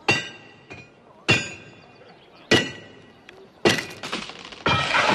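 Blacksmith's hammer striking metal on an anvil: four sharp ringing clangs a little over a second apart, with lighter taps between. Near the end, a denser, louder clatter of sound sets in.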